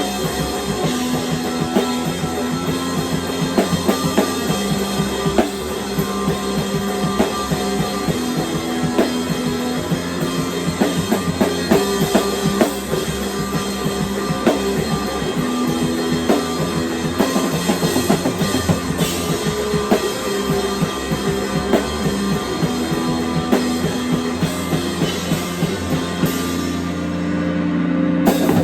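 Music with a steady drum-kit beat under sustained pitched instrument notes, in a rock style.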